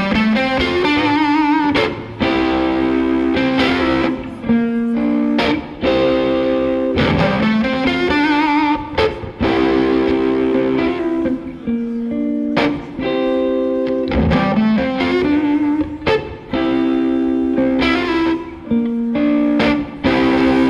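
Background music led by electric guitar, playing sustained chords in a repeating phrase about every two seconds.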